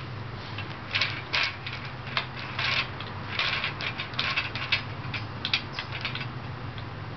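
Wooden beads of a bead maze toy clacking against each other and the wire loops as a baby pushes them, in irregular clusters of clicks that stop near the end.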